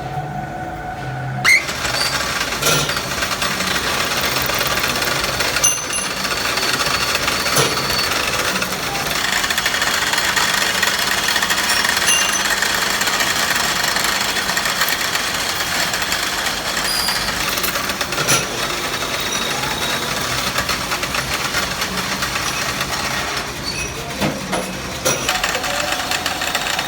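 Steady workshop machinery running, with sharp metallic clicks and knocks at irregular intervals.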